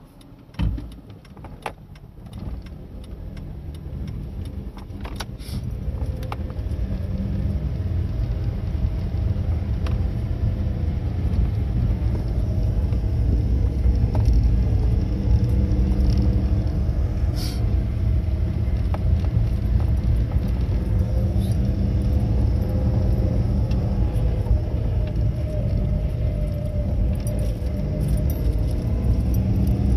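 Road and engine rumble of a moving car heard from inside the cabin, growing louder over the first several seconds as the car picks up speed, then running steadily. A few light clicks and rattles sound in the first few seconds.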